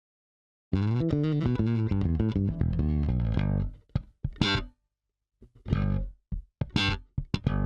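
Recorded distorted electric guitar and bass riff. A held chord starts about a second in, then breaks into short choppy stabs with silent gaps between them.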